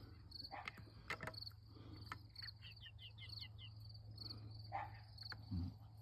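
Insects chirping in a steady pulsing rhythm, with a quick run of about six short falling chirps a few seconds in and a few scattered clicks and short bird sounds from the chickens. A faint low hum runs underneath.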